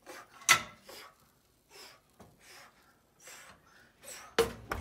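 A few short clunks and knocks from handling an electric oven, its door and wire rack. The loudest comes about half a second in and another near the end, with fainter taps between.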